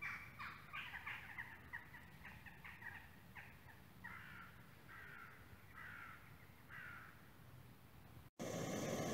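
Wild animals squabbling in the woods at night: a fast run of calls, each falling in pitch, then four calls spaced about a second apart. Near the end a loud steady hiss begins.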